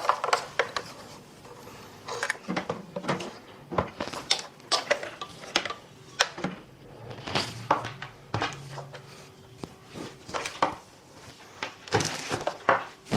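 Irregular knocks and clicks of hard plastic canister-filter parts being handled and fitted together, as the filter head is set onto the canister over its silicone gasket.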